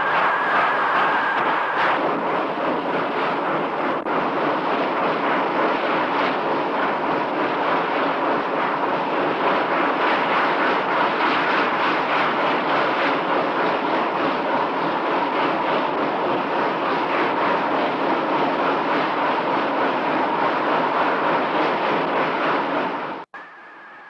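A train running: a steady rolling rush with a faint constant tone underneath, which cuts off abruptly near the end.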